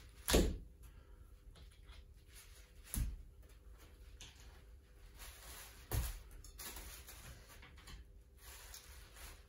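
Three short, sharp knocks about three seconds apart as bagpipe parts are handled and set down on a table.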